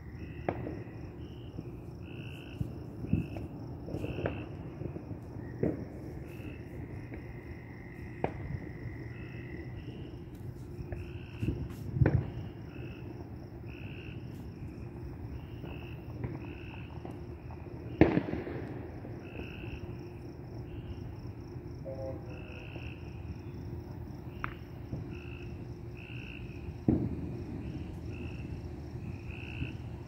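Fireworks banging at irregular intervals, about ten reports, the loudest about 18 seconds in. Under them runs a steady chorus of crickets and other night insects with a fast pulsing trill.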